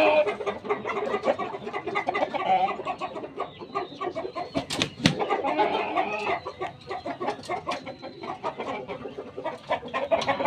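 Rooster clucking over and over in short calls, with two sharp knocks about halfway through.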